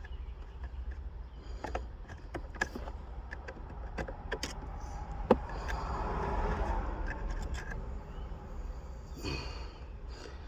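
Scattered light clicks and rattles of small plastic shifter trim parts and tools being handled, with a sharper click about five seconds in, over a steady low hum.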